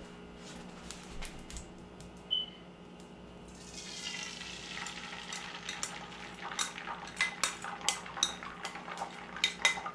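Beaten eggs poured into a hot oiled frying pan begin sizzling about three and a half seconds in. A metal spoon clicks and scrapes against the ceramic bowl and the pan over the sizzle. Before the pour there is a low steady hum and a single short clink.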